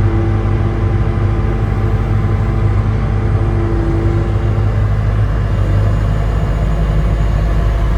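2020 Bobcat S740 skid steer loader's diesel engine running steadily, its note shifting slightly about five seconds in.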